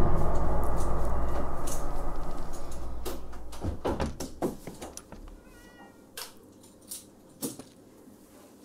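A deep rumble fades away over the first few seconds. Scattered sharp clicks and knocks follow, and a short, faint cat meow comes about six seconds in.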